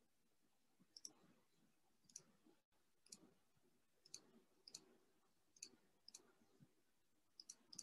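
Near silence broken by faint, short clicks at irregular spacing, roughly one a second.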